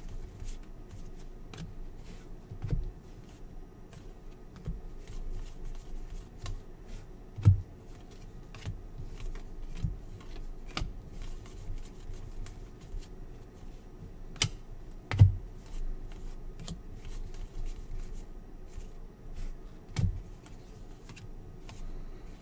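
A stack of NBA Hoops basketball trading cards flicked through by hand, each card slid off the front of the stack with a light tick, plus three louder knocks spread through.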